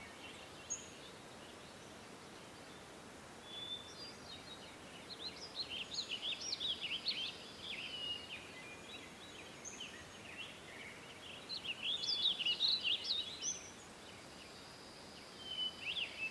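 Small birds chirping and singing in quick twittering bouts, a longer bout starting about four seconds in, another around twelve seconds and a short one near the end, over a faint steady outdoor hiss.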